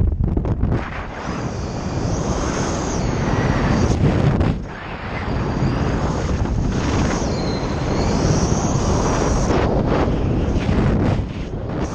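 Wind rushing and buffeting over a helmet camera's microphone as a skydiver flies under an open parachute canopy, loud and uneven, easing briefly a few times.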